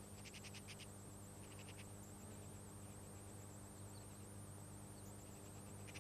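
Faint, rapid trains of high squeaky clicking calls from begging great cormorant chicks, twice in the first two seconds and once more at the end, over a steady low hum and hiss.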